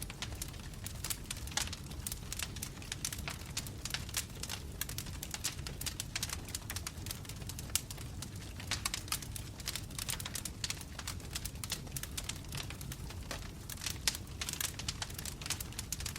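Wood fire burning in a fireplace: logs crackling with dense, irregular pops and snaps over a steady low rumble.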